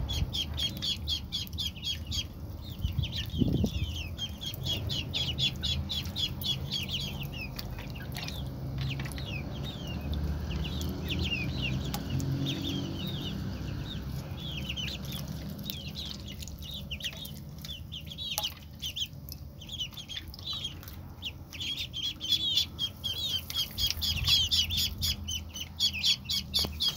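Ducklings peeping: a steady stream of short, high-pitched calls several a second, thinning out in the middle and picking up again near the end.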